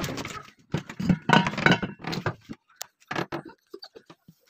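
Scuffling, scraping and scattered knocks as a dog rummages among stored things behind a metal drum, hunting a mouse. The scuffling comes in irregular spells, with a few sharp clicks and thuds.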